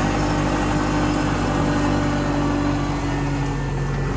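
Kubota L-series tractor's diesel engine running steadily while driving, heard loud through the cab's open back window, with the tire chains jingling.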